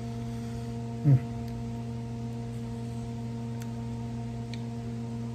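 Steady low electrical hum with several overtones. About a second in comes one short falling vocal sound, and a few faint clicks come from fingers handling the chicken and its paper wrapper.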